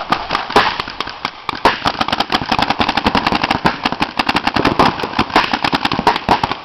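Paintball markers firing in rapid, irregular strings of sharp pops.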